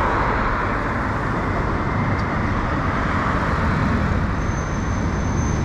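Steady road and traffic noise heard from a moving bicycle on a city street, with a thin high-pitched tone for about a second near the end.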